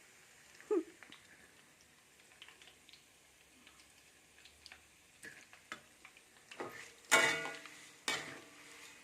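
Kitchen utensils and dishes being handled: scattered light clicks and taps, a short falling squeak under a second in, then a loud ringing metal clatter about seven seconds in and another sharp knock a second later.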